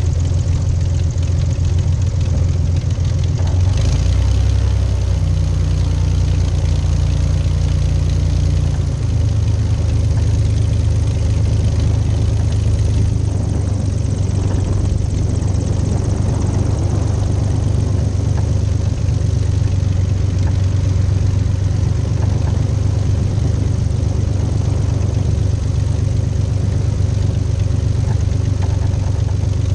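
XtremeAir XA42's six-cylinder Lycoming 580 engine running steadily at low taxi power, heard from the wingtip with the propeller turning, with a slight change in tone about nine seconds in.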